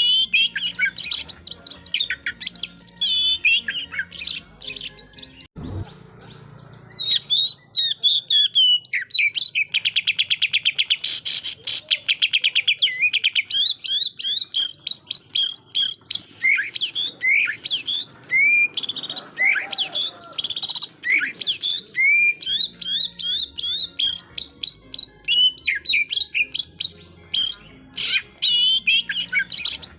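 Oriental magpie-robin (kacer) singing loudly and without pause: fast, varied chattering phrases, whistles and chirps. After a brief break with a single low thump, a fast rattling trill lasts about three seconds, the 'tembakan' (shooting) phrase.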